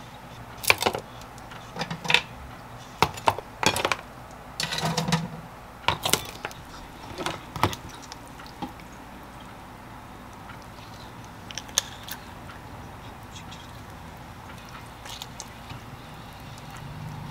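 Cooked whelk shells clicking against a ceramic bowl and each other, and a small metal fork tapping on the shells as the meat is twisted out, in a string of light clicks and taps that thin out after the first half.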